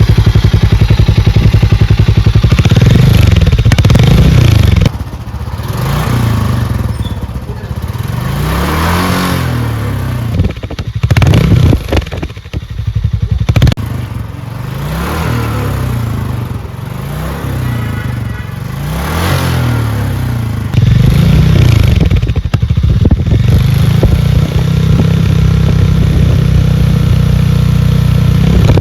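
Harley-Davidson X440 and Royal Enfield Bullet single-cylinder motorcycle engines running together, idling with repeated throttle blips that rise and fall in pitch, and held at a loud, steady run near the end.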